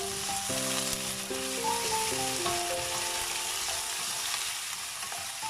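Cut potatoes and carrots frying in a little cooking oil in a pan: a steady sizzle. Background music with sustained melody notes plays over it.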